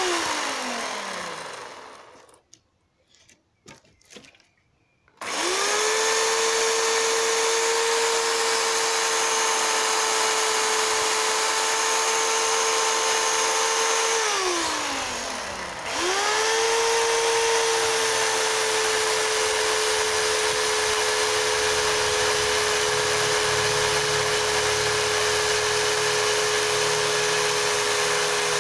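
Worx corded electric chainsaw's motor running with a steady high whine. It spins down at the start and is off for about three seconds, then starts again. About halfway it winds down and at once spins back up, and in the last part the chain is cutting into the log.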